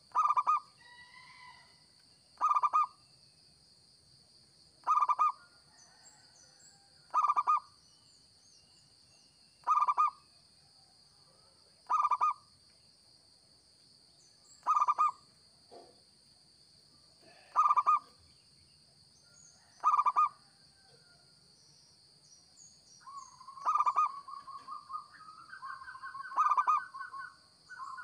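Zebra dove (perkutut) cooing: short loud coos repeated about every two and a half seconds, then a longer rolling, stuttering run of notes near the end.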